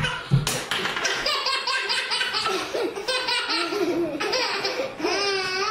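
A baby laughing hard in a run of high-pitched laughs, with a brief sharp noise about half a second in.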